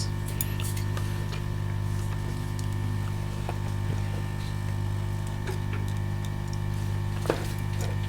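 Steady electrical hum with a faint high whine, with a few light clicks and taps, one sharper click about seven seconds in.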